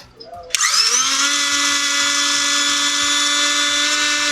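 Mixer grinder's universal motor switched on about half a second in, spinning up quickly to a steady high whine. This is the test run after its worn carbon brushes were replaced.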